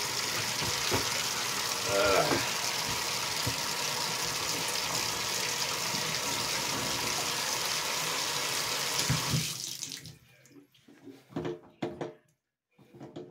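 Bathtub faucet running, water splashing into the tub over a newly installed drain to test it for leaks. The flow cuts off about ten seconds in, followed by a few faint knocks.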